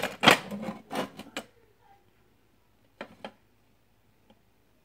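Postal scale being picked up and handled: a quick run of clattering knocks in the first second and a half, then a shorter clatter about three seconds in.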